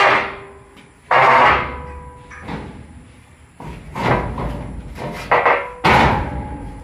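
Heavy metal clanks and scrapes as the steel thresher drum of a Swaraj combine harvester is shoved by hand into its housing. About five loud hits, each fading away with a brief metallic ring.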